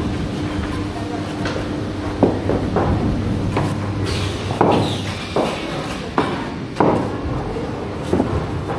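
Irregular knocks and thuds of knives and fruit on a wooden worktable as pomelos are peeled and trimmed by hand, over a steady low hum that stops about halfway through.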